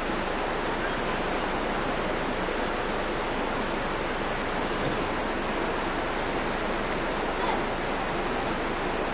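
Steady, even rushing hiss that does not change, with faint voices now and then.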